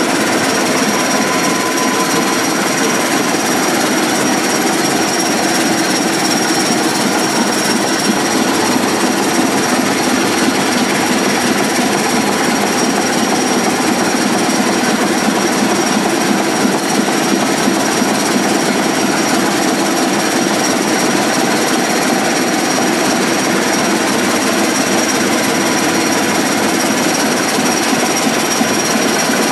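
The Rangatira freighter's multi-cylinder ship's engine running steadily at a loud, even level, its firing strokes making a fast, regular clatter.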